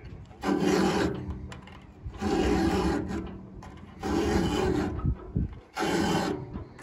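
Round chainsaw file pushed across the cutters of a saw chain, sharpening it by hand: four file strokes, each just under a second long, about two seconds apart.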